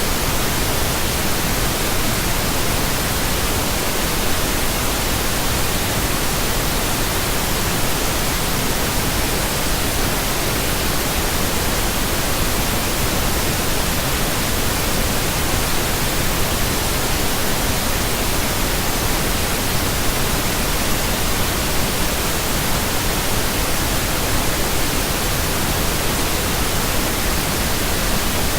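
Steady synthetic pink noise, an even hiss spread across all pitches without change.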